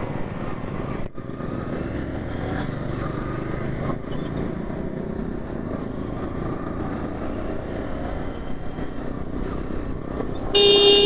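Motorcycles running on the road, a steady engine and road noise. A vehicle horn sounds briefly near the end.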